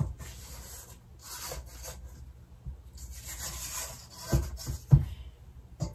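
Spatula scraping down the sides of a metal stand-mixer bowl in several strokes, with a few short dull knocks near the end.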